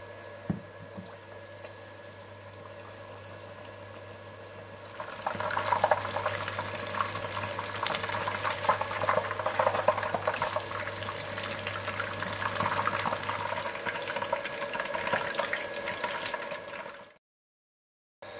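Turmeric-battered chicken breast shallow-frying in hot oil in a nonstick pan: a soft steady sizzle that turns into loud, dense crackling about five seconds in. The frying cuts off suddenly shortly before the end.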